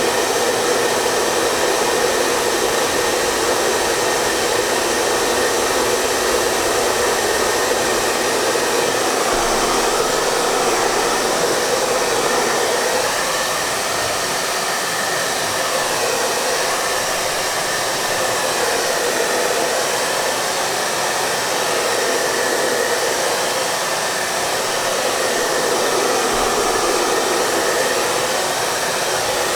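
Hair dryer running continuously: an even rush of blown air with a faint steady high motor tone over it.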